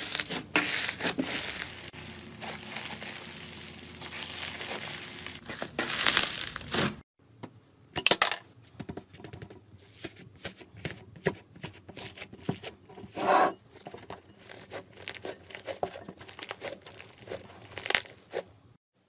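Slime being squeezed, stretched and pulled apart by hand, crackling with small pops. After a short break about seven seconds in, a second stretch of quicker, sharper clicks and pops follows.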